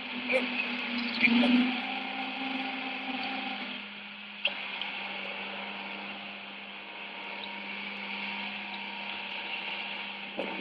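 Steady machine hum with a low drone, from field-video audio of a geothermal loop being lowered into an augered borehole; a slightly higher tone in the drone drops out about four seconds in.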